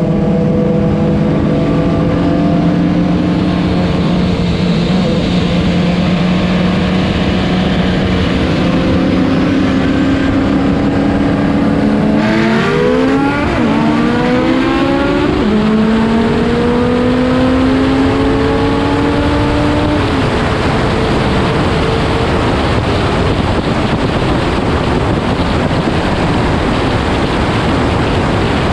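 A built Mitsubishi Evo IX's turbocharged four-cylinder, heard over steady wind and road noise, holds a steady drone at speed. Just under halfway it goes to full throttle, its pitch climbing through a couple of quick manual upshifts. About two-thirds through the throttle comes off, leaving wind and road noise.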